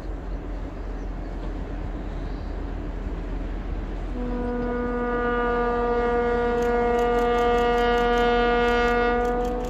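ST44 'Gagarin' diesel locomotive's horn sounding one long steady blast, starting about four seconds in and lasting some five seconds, over the low rumble of the approaching train.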